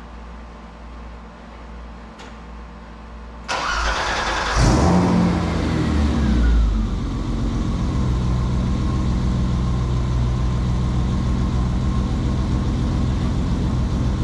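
BMW E30 engine starting in an echoing garage: the starter cranks for about a second, the engine catches with a rev flare about a second later, and the pitch falls back over a couple of seconds to a steady idle.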